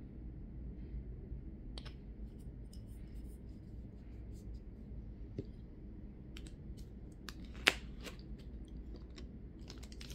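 Light clicks and taps of nail polish bottles and stamping tools being handled on a tabletop, with one sharper click a little past halfway, over a low steady hum.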